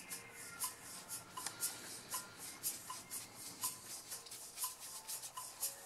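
Paintbrush rubbing and stroking on sketchbook paper, over soft background music with a steady, ticking beat.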